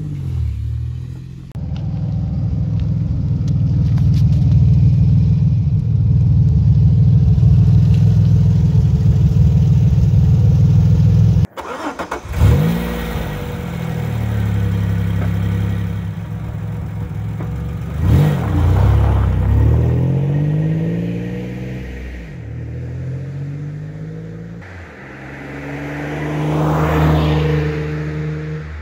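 Chevrolet Beretta's 60-degree V6 through a custom 2.5-inch exhaust with a fiberglass-packed muffler. First comes a loud steady low exhaust rumble for about ten seconds. After a cut the engine is revved up and let back down twice, and near the end the car goes past, swelling and fading.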